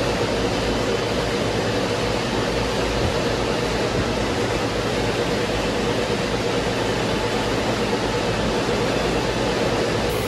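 Large industrial floor fan running at a steady speed: an even rushing of air with a faint steady motor hum underneath.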